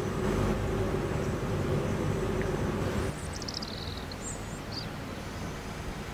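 Quiet background room noise with a faint steady hum; the hum stops and the noise drops slightly about halfway through. A few faint, high, short chirps come just after.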